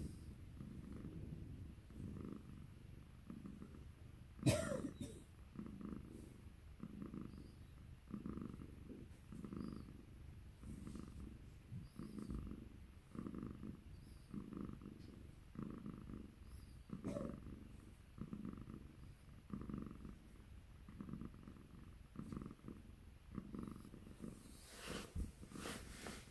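Domestic calico cat purring steadily, close up, the purr swelling and fading about once a second with each breath. A short sharp noise cuts in about four and a half seconds in, and there is fabric rustling near the end.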